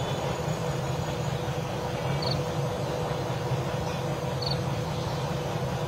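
Steady outdoor background rumble in woodland, with a faint short high chirp repeating about every two seconds.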